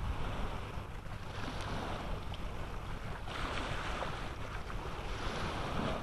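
Wind blowing across the microphone: a steady low rumble under an even hiss, with no bird calls.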